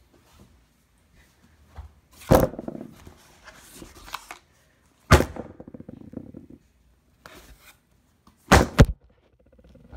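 Heavy thuds of blows struck against a desk: one about two seconds in, another about five seconds in, and two in quick succession near the end, the first two followed by a brief clatter.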